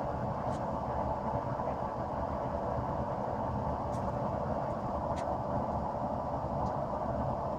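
Gas forge burner running with a steady roar, with a few faint ticks over it.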